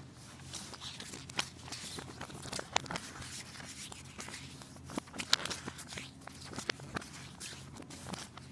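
A glossy paper leaflet being handled, with its pages turned: uneven rustling with scattered light clicks and crinkles.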